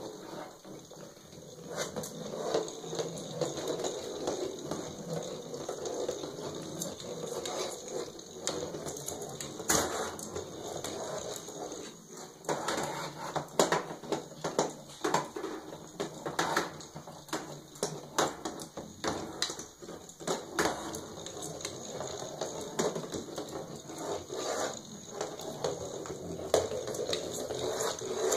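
Battery-powered weasel ball cat toy, a motorized ball trailing a furry tail, whirring steadily as it rolls over a hardwood floor, with many irregular clicks and knocks as it bumps about and is batted.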